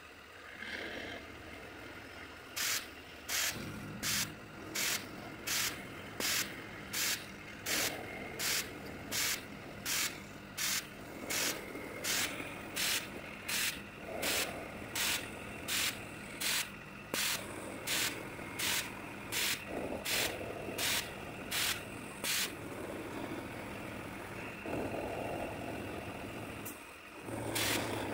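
Homemade CNC mini mill cutting mild steel with a 12 mm carbide end mill: the spindle hums steadily while a short, sharp burst of cutting noise repeats about every 0.7 s, stopping about 22 seconds in.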